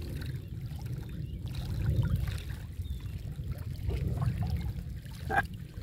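Low, uneven rumble of wind buffeting the microphone, with a short click about five seconds in.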